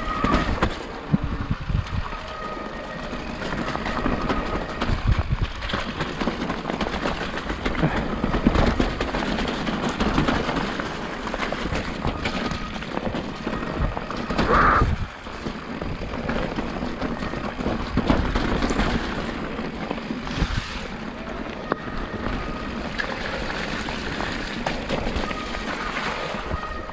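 Nukeproof Giga enduro mountain bike ridden down a rain-soaked trail: steady tyre and rattling noise with frequent thumps over bumps, and a short high squeal about halfway through.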